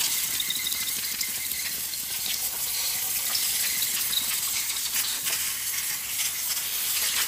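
Steady high-pitched hiss of a spray jet cleaning an engine cylinder head, with a few light clicks.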